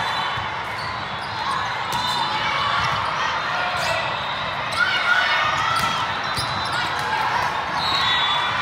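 Volleyballs being struck and bouncing, several sharp slaps echoing in a large hall, over the constant chatter of players and spectators.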